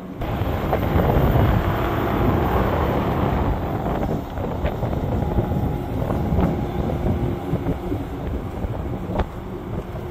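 Wind rushing over the microphone and tyre noise from an Ola S1 Pro electric scooter riding up a hill road, with no engine sound; a faint steady hum comes in near the end.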